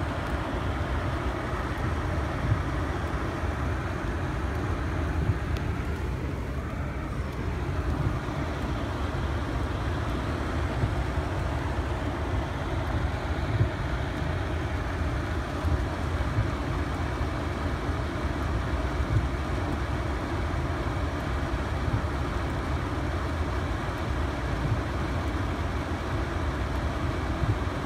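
Steady low rumble of a car heard from inside its cabin, the engine running, with rain on the windshield and body.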